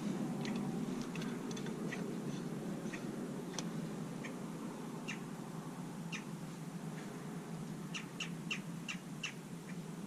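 Short, sharp bird chirps, scattered at first and coming in a quick run near the end, over a steady low background noise.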